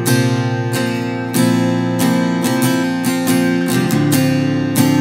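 Cort SFX Dao Nat acoustic guitar with chords strummed with a pick. The strokes come slowly at first, then in a quicker steady rhythm from about two seconds in.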